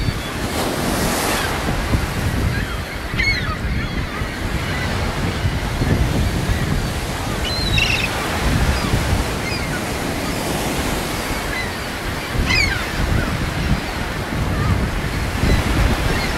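Ocean surf washing steadily, with wind buffeting the microphone and making a low rumble. Three short high-pitched chirps cut through, spread a few seconds apart.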